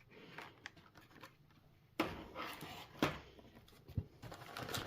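Handling of the boxed contents of a trading-card collection, such as a deck box and dice: light rustling and small handling noises, with sharp knocks about two, three and four seconds in.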